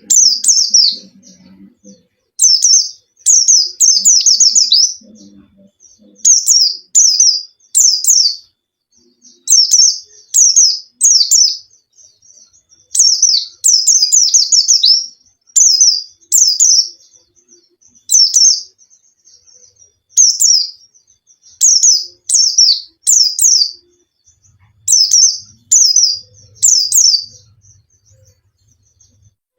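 Pleci (Zosterops white-eye) singing: a string of short phrases of rapid, high, steeply falling chirps, each phrase about a second long with short pauses between. It is the kind of lively song used as a lure to set a quiet pleci singing.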